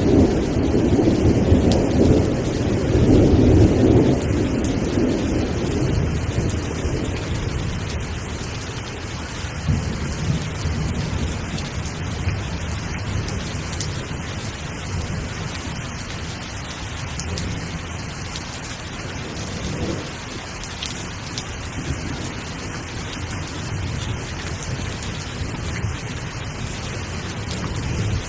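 Steady rain falling, with a rumble of thunder in the first few seconds that dies away, then only the rain with a faint low rumble now and then.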